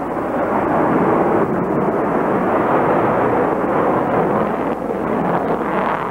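Sukhoi Su-27 fighter's twin AL-31F turbofan engines as the jet flies overhead: a loud, steady jet noise that sets in abruptly at the start and holds without letting up.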